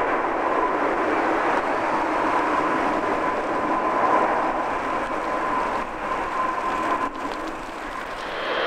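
Boeing 777F freighter's GE90 turbofan engines running at low power as the aircraft slows and turns off the runway after landing: a steady jet roar with a steady whine, easing off near the end.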